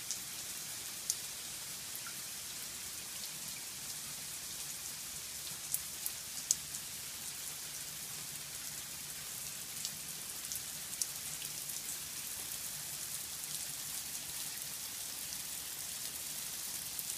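Steady slow rain falling, an even hiss, with a few sharp drops of water ticking close by now and then.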